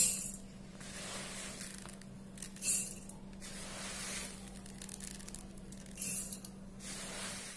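Handfuls of dry pearl millet grains poured into a stainless steel mixer-grinder jar, three hissing, rattling pours: one at the start, one about two and a half seconds in, and one about six seconds in.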